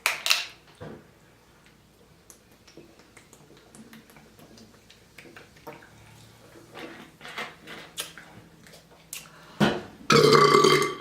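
Close-up eating sounds of a seafood boil: chewing, lip smacking and light clatter of dishes. Near the end comes a loud, drawn-out burp.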